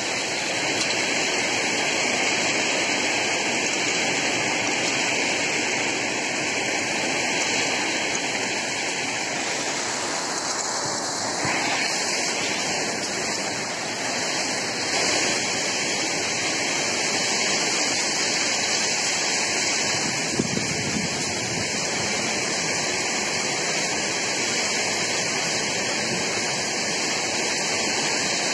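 Kalbaishakhi (nor'wester) storm: heavy rain and strong wind making a steady, loud rushing noise.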